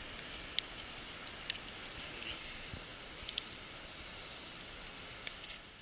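Wood campfire crackling: a soft steady hiss with about seven sharp pops scattered through.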